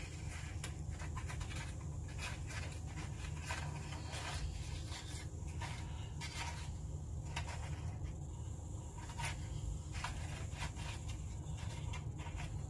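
Crackers being set by hand onto a wooden charcuterie board: light, irregular clicks and rustles over a steady low hum.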